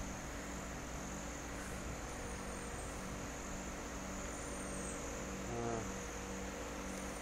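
Steady high-pitched drone of insects in the trees, over a low, faintly pulsing hum, with a brief pitched sound about five and a half seconds in.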